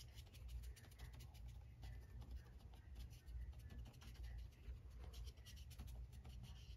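Flat paintbrush scratching and dabbing on paper in quick, faint, scratchy strokes.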